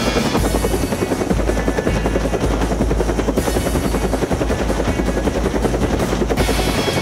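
Helicopter hovering low overhead, its rotor and engine noise loud and steady, with a fast chop in the low end.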